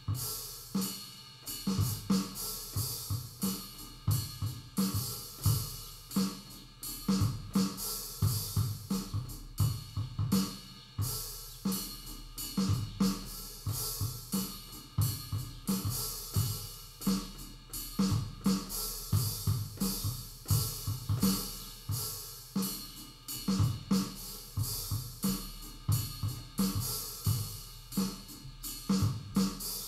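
A steady drum groove of kick, snare and hi-hat hits playing in an ongoing rhythmic pattern.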